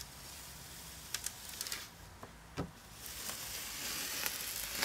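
Worn adhesive-backed sandpaper sheet being peeled off a glass lapping plate. A faint crackling, tearing hiss builds over the last couple of seconds after a few light clicks and a soft knock, and it ends with a sharp snap.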